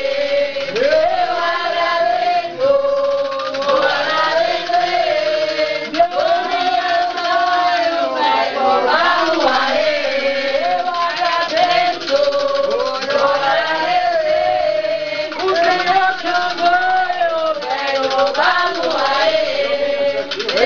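A group of men and women singing a ritual chant together, an Umbanda ceremonial song, with long held notes that rise and fall.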